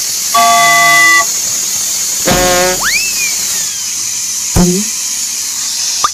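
Steady high hiss with short pitched sounds on top: a horn-like blast lasting about a second near the start, then a tone that sweeps sharply up and slowly falls away, then a brief click and a quick rising chirp near the end.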